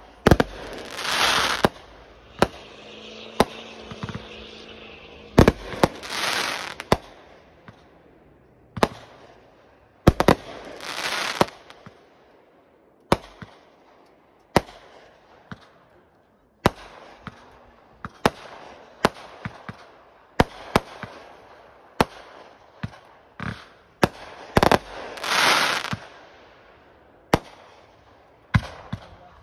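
Aerial fireworks display: a steady run of sharp bangs from bursting shells, with four louder rushes of noise lasting about a second each.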